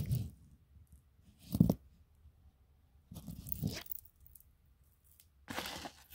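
Handling noises from jewellery and packing being moved about on a cloth-covered table: a short knock about a second and a half in, then two bursts of rustling.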